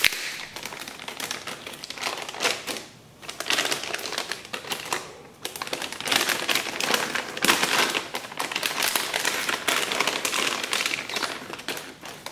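Anti-static shielding bag crinkling and crackling as it is opened and a heavy graphics card is slid out of it. Rapid crackles go on with two short lulls, about three and five seconds in.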